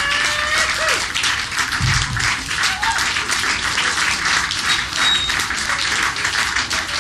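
Audience applauding, with music mixed in under the clapping.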